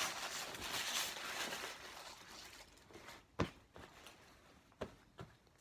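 Soft rustling that fades away over the first couple of seconds, then three short sharp clicks or taps.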